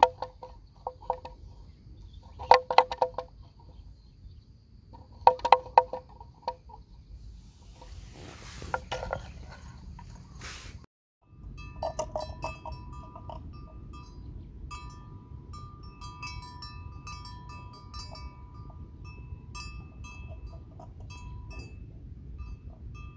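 Bells clanking in irregular bunches of strikes for the first ten seconds. After a short dropout about eleven seconds in, many lighter bell notes tinkle, all over a steady low rumbling noise.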